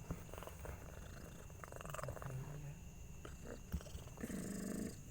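Domestic mother cat purring in labour, a low pulsing rumble that grows stronger briefly near the end, with faint scattered clicks.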